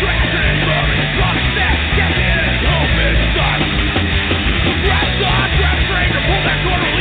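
Loud, fast punk rock music with distorted guitars, bass and drums playing continuously.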